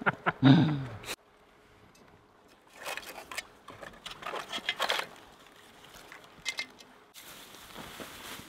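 Metal camping cookware being handled: pot, lid and pan clinking and clattering in a few short bursts, then a plastic bag rustling near the end.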